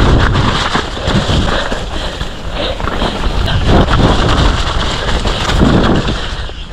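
Loud wind buffeting a moving microphone, a dense rumble with irregular knocks and rattles throughout.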